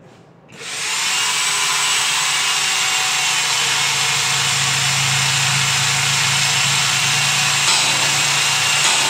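A power tool starts about half a second in and runs steadily and loudly, a dense hiss over a low motor hum.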